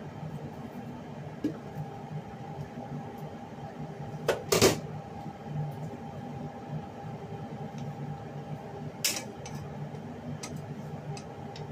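A glass pot lid clatters twice as it is lifted off a wok about four seconds in, then a spatula clicks against the pan near the end, over a steady kitchen hum.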